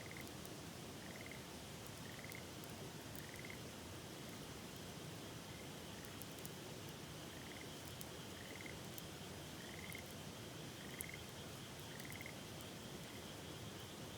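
A frog calling over and over, short calls about once a second, over the steady rush of a river, with scattered faint crackles from a campfire.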